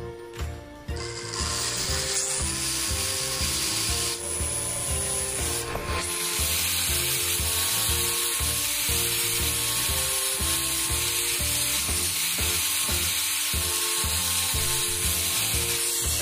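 Angle grinder with a sanding disc running against a small wooden disc, abrasive grinding the wood down to a round wheel: a loud, steady grinding hiss that starts about a second in.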